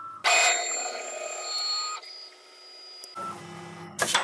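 CNC router running an automatic tool change: the axis drives whine with several steady tones as the spindle travels, settling to a quieter whine and hum, with a short sharp clack about four seconds in.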